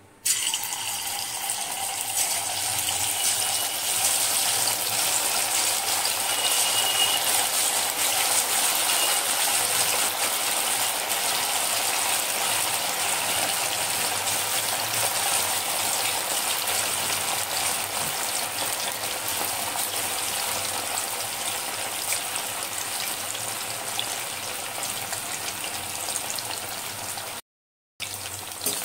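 Marinated chicken pieces deep-frying in hot oil in a kadai: a loud, steady sizzle and crackle that starts suddenly as the pieces go in and eases a little over time. It cuts out for a moment near the end.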